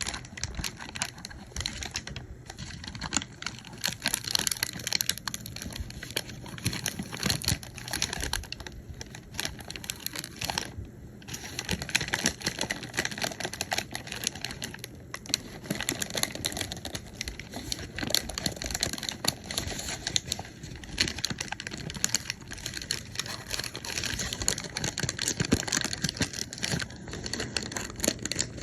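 Paper bag crinkling and crackling as it is handled: a dense run of small crisp clicks, with a few brief pauses.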